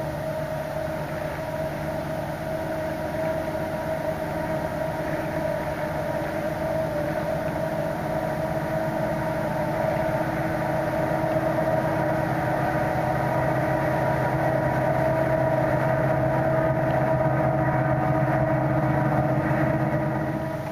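A steady engine drone with a fixed-pitch hum that slowly grows louder, then cuts off suddenly at the end.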